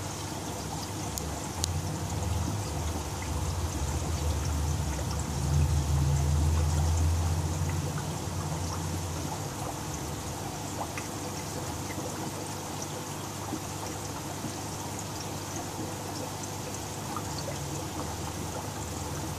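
Steady trickling and splashing of aquarium water, the kind of flow a filter return makes falling into the tank. A low rumble swells a couple of seconds in and fades out by about nine seconds.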